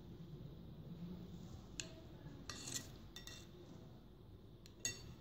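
Knife blade clinking faintly against a porcelain plate while cutting a slice of soft sponge cake: a few small clicks, the loudest near the end.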